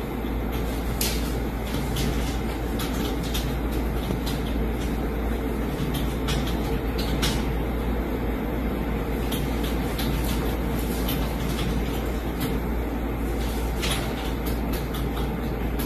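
Steady low rumble of background noise, fairly loud, with scattered short clicks over it.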